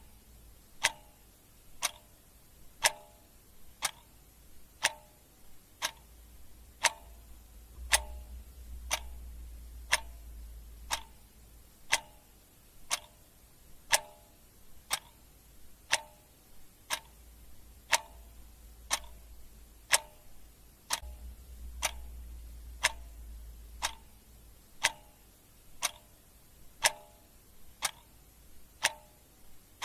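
Clock ticking steadily, one sharp tick about every second, over a faint low hum.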